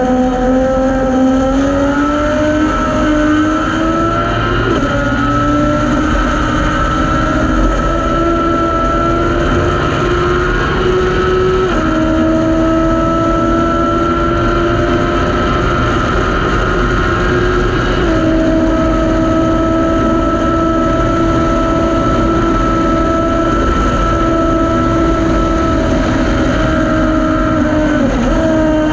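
Thunder Roadster race car's engine at high revs, heard onboard. Its pitch climbs over the first few seconds and then holds steady for long stretches, changing abruptly a few times at gear changes, over a steady rush of wind and road noise.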